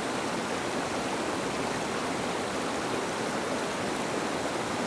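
Steady rushing of a fast-flowing, swollen river: an even, unbroken wash of water noise.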